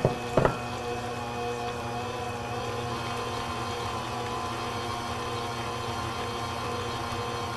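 Smeg stand mixer running steadily with a constant motor whine, its flat paddle beating butter, sugar and freshly added eggs in the stainless steel bowl. Two short knocks in the first half second.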